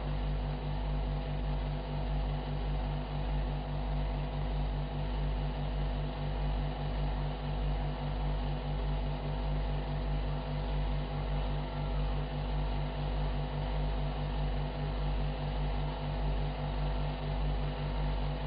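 Steady low hum with several held tones and a hiss over it, pulsing faintly and evenly, from the background of an old film soundtrack.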